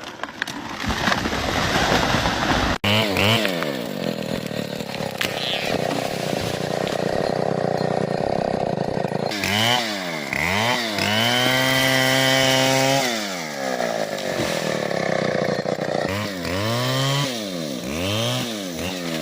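Stihl 070 two-stroke chainsaw revving up and down over and over, held at full throttle for a second or two midway. The first few seconds are a dense crackling rush that cuts off abruptly.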